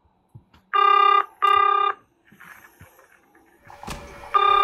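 Telephone ringing in a double-ring pattern: two short, steady electronic rings about a second in, then the next pair begins near the end.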